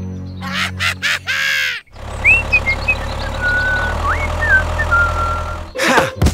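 A small motor hums steadily and cuts off abruptly about two seconds in, then a toy tractor's engine runs steadily with short whistled chirps over it. High, squeaky chattering comes in near the end.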